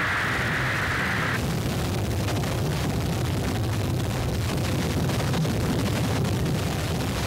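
Large fire burning: a steady, dense rumbling noise full of crackling. A high hiss sits over it and cuts off about a second and a half in.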